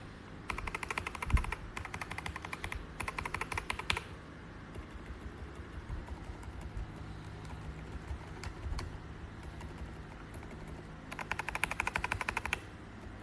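Mechanical keyboard fitted with KTT Kang White V3 linear switches being typed on in fast runs of keystrokes: three bursts over the first few seconds, a lull with only a few scattered key presses, then another fast burst near the end.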